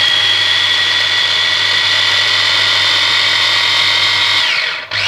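Kenwood electric mini chopper running with a steady whine as it blitzes a fresh coriander and spice mix. Near the end the motor is let off and winds down in pitch, then is pressed on again.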